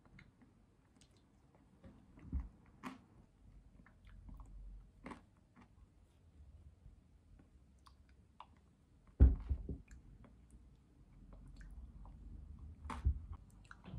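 Eating a smoothie bowl: a wooden spoon scraping and clicking in a coconut-shell bowl, with quiet chewing. There is a sharp knock about nine seconds in and another near the end.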